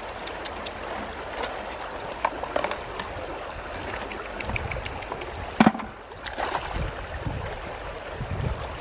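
Shallow stream running over stones, with small splashes and clicks as a plastic bucket and a wire-mesh fish trap are handled in the water. One sharp knock a little past halfway is the loudest sound.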